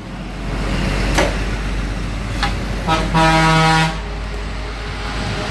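Double-head aluminium cutting saw switched on: a low motor hum starts, with a couple of clicks. About three seconds in, a loud horn-like tone lasts about a second.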